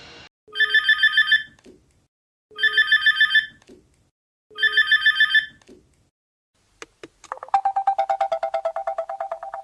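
Mobile phone ringtones: an electronic trilling ring sounds three times, each burst about a second long and two seconds apart. After a click or two, a second ringtone starts about seven seconds in, a rapid pulsing tone that steps slightly down in pitch.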